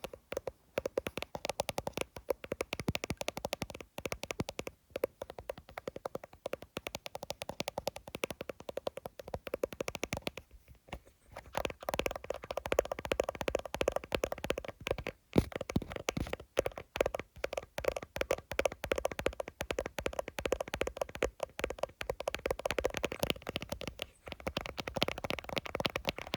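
Fingers tapping fast on an iPhone, close-miked: a dense, rapid run of taps with a few brief pauses, the longest a little before halfway.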